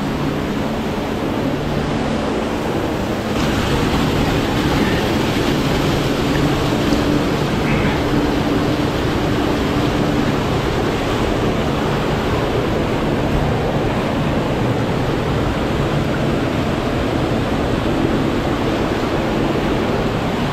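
Rushing water of a mountain gorge stream and its small waterfalls, a loud, steady rush that grows a little louder about three seconds in.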